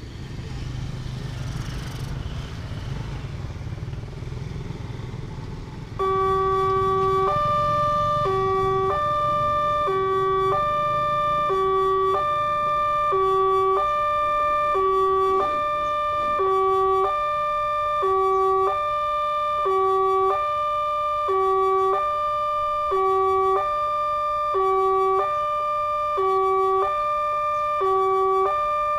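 A motorcycle passes over the crossing, then about six seconds in the railway level-crossing warning alarm starts. It is a loud electronic chime, a low note followed by higher notes, repeating about every one and a half seconds, and it signals that a train is approaching and the barrier is coming down.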